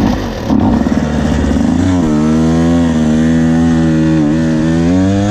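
2024 KTM 125 SX two-stroke dirt bike engine running under throttle, its pitch wavering and rising near the end.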